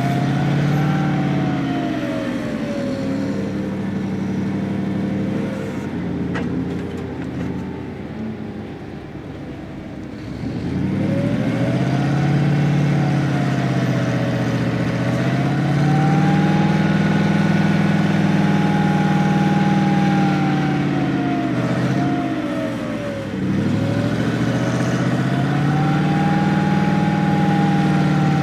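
Motor vehicle engine running under load, its pitch climbing, holding and dropping back several times as it revs up and eases off.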